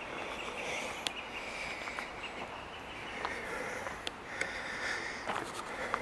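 A hiker breathing through the nose while walking, in repeated breaths about every second or so, with a few faint clicks from footsteps on the dirt trail.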